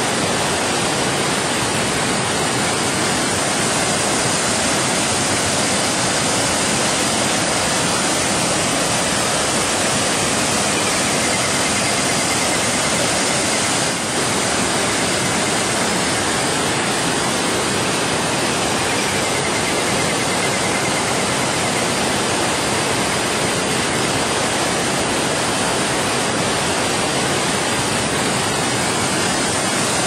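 Stream water rushing and splashing over rocks near a waterfall, an even, unbroken rush of water.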